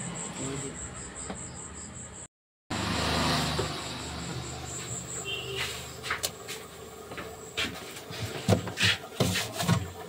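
Handling noise in a refrigerator's freezer compartment: a string of sharp clicks and knocks, loudest near the end. It follows a faint, evenly pulsing high chirp in the first two seconds.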